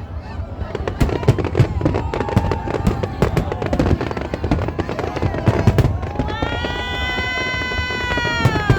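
Aerial fireworks exploding in a rapid run of bangs and crackles, with spectators' voices calling out over them and a long drawn-out high call near the end.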